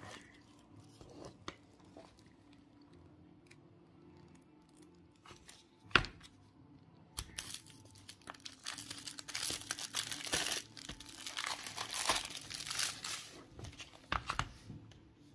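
Plastic shrink-wrap being picked at, torn and crinkled off a cardboard chocolate box. A few light taps and a sharp click about six seconds in, then about seven seconds of dense crackling and tearing.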